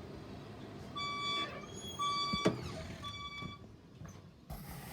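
Fire alarm speakers sounding the evacuation alert tone between voice-message repeats: three short beeps, each about half a second long, in a three-pulse temporal pattern. A sharp click comes just after the second beep.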